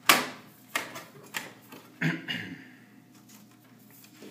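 Parts being handled on a server sled's sheet-metal chassis: four sharp clicks and knocks in the first two seconds, the first the loudest, the last followed by a brief rattle.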